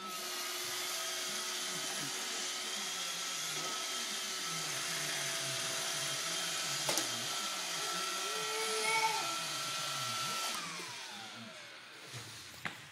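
Roomba robot vacuum running: its motor whines up to speed at the start, whirs steadily, then winds down with a falling whine about ten and a half seconds in as it shuts off.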